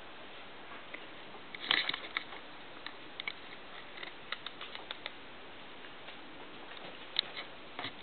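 Light clicks and scuffs of a three-legged cat moving on a hardwood floor beside a wire pen: a quick cluster about two seconds in, then scattered single taps.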